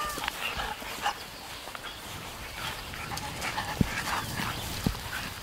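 A dog making short, scattered vocal sounds, with two dull thumps in the second half.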